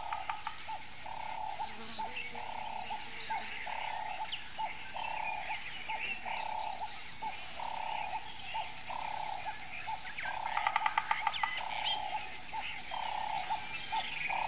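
Frogs calling, with one call repeating about every second and a bit. Higher chirps run over it, and a quick run of clicks comes about ten seconds in.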